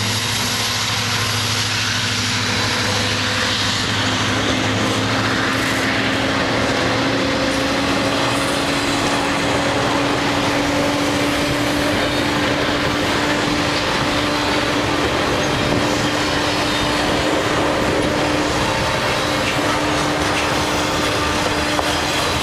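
Intermodal freight train cars loaded with truck trailers rolling past at speed: a steady rumble and clatter of steel wheels on the rails, with a faint steady whine. The low engine drone of the departing lead diesel locomotives fades out in the first few seconds.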